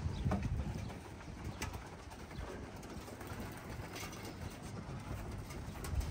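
Young racing pigeons cooing low around their loft, with a few faint short flaps of wings.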